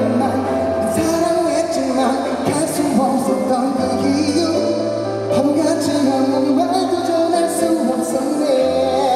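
Live pop song: a sung melody over held bass notes and sustained chords.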